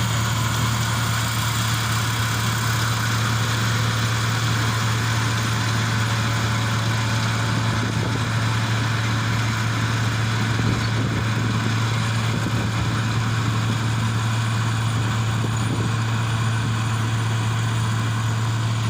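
Kubota rice combine harvester running steadily, a constant low engine hum with a broad mechanical rush over it and no change in speed.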